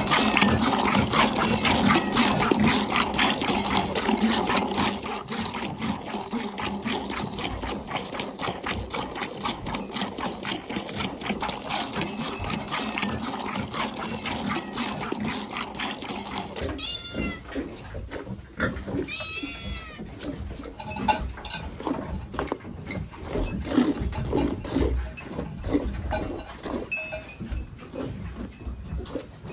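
Milk squirting from a cow's teats into a metal pail in rhythmic spurts as the cow is milked by hand. A cat meows twice, briefly, about seventeen and twenty seconds in.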